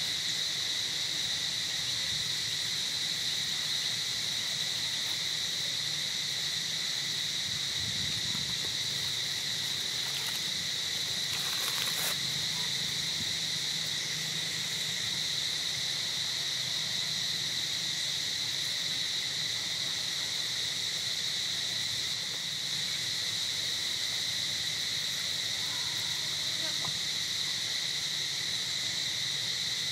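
Steady high-pitched drone of insects calling in the forest, with a brief rustle about twelve seconds in.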